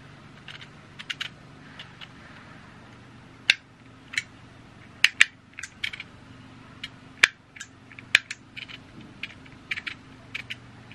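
Handheld Motex embossing label maker clicking: the character wheel ratcheting round to each letter and the grip snapping shut as letters are pressed into the tape. The clicks come irregularly, with several sharper, louder snaps in the middle.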